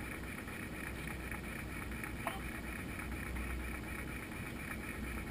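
Motorcycle engine idling steadily at a standstill, with wind buffeting the bike-mounted microphone and a single short click about two seconds in.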